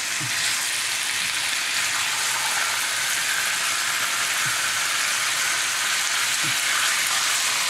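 Beef chunks searing in a hot wok, a steady sizzle of frying meat, while they are turned over with tongs.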